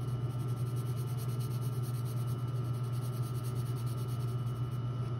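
Graphite pencil scratching across drawing paper while shading in a dark shadow area, over a steady low hum.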